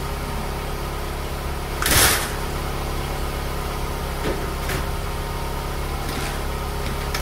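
A car engine idling with a steady low hum. About two seconds in, a short rushing noise stands out above it, with a few faint ticks later on.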